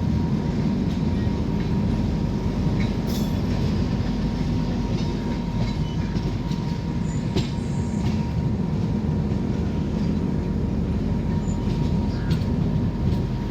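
Alappuzha–Dhanbad Express passenger train rolling along the track: a steady low rumble of wheels and carriages with scattered clicks and knocks.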